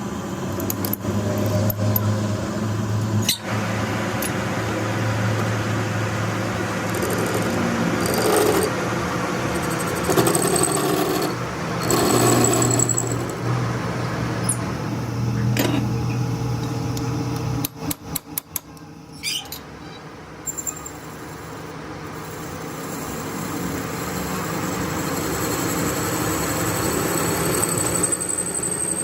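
Workshop mechanical noise: a steady machine hum with scattered metallic clicks and knocks. It cuts out suddenly about two-thirds of the way through, then slowly builds back up.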